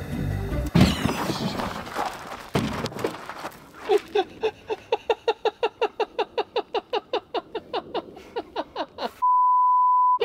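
Gas from a two-hob camping stove ignites in a sudden whoosh about a second in, a flare-up that singes hair, and rushes on for about two seconds. Then comes a fast even pulsing, about five a second, for several seconds, and near the end a steady censor bleep.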